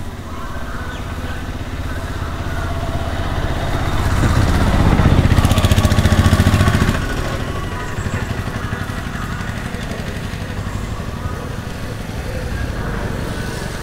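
A motor vehicle's engine passing close by on the road. It swells from about four seconds in, is loudest for two to three seconds, and drops away suddenly about seven seconds in, over a steady outdoor background noise.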